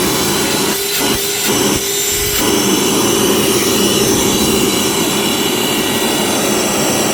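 Ryobi PCL733B 18-volt one-gallon cordless wet/dry vacuum running at full speed: a loud, steady rush of air with a held motor whine, with a few brief dips in the first couple of seconds.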